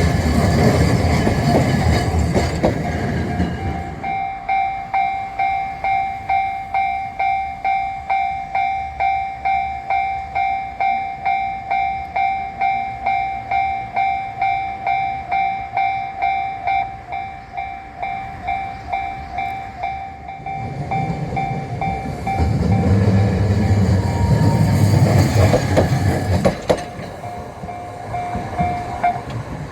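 A train rumbling over the crossing for the first few seconds. Then the Japanese level-crossing alarm sounds plainly, its electronic bell ringing about twice a second. Another heavy vehicle rumbles past from about 21 s to 27 s while the bell keeps going, and the bell cuts off shortly before the end.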